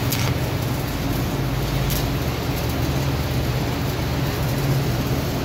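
Stick welder idling with a steady low electrical hum, the arc not yet struck, with a couple of short clicks near the start and about two seconds in.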